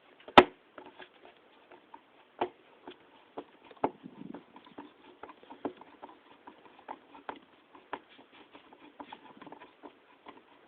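Scattered small clicks and taps of hand work on a duplex electrical receptacle in its wall box, with one sharp click about half a second in.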